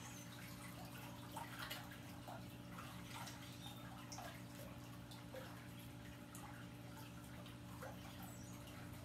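Quiet background: a steady low hum with faint, scattered drips and trickles of water.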